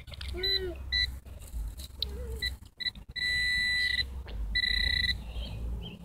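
Handheld metal-detector pinpointer beeping at one fixed pitch, first in short beeps and then in two longer steady tones about three and four and a half seconds in, as it closes in on a metal target. Low wind rumble underneath.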